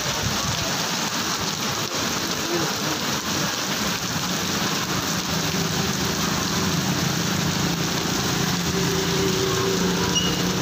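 Heavy rain pouring onto a waterlogged street, a dense, steady hiss. From about halfway through, a vehicle engine hums steadily underneath.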